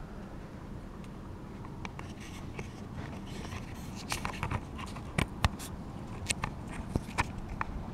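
Handling noise: a string of sharp clicks and scrapes, most of them from about four seconds in, as a camera is fitted against a night vision monocular's eyepiece, over steady background noise.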